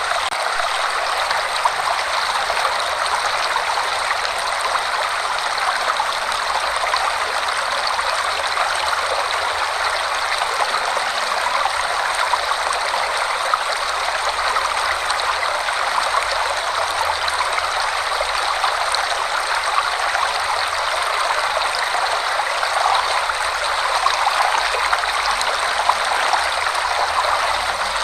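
Forest waterfall, water pouring and splashing steadily.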